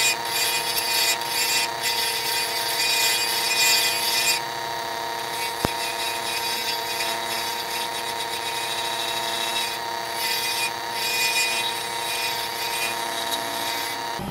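Small wood lathe running with a steady motor whine while a carbide turning tool cuts a zebrano pen blank, giving a rough scraping hiss of shavings coming off. The cutting is heavy for the first four seconds, then lighter and in patches. This is the blank being shaped down toward its final slimline pen profile.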